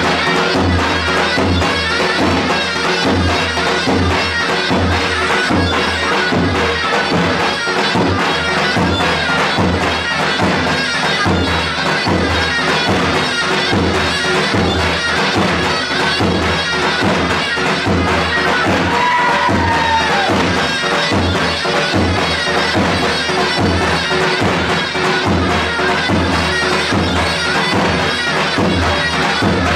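Loud traditional folk dance music: a shrill reed pipe plays a melody over a drone and a steady, evenly repeating drum beat.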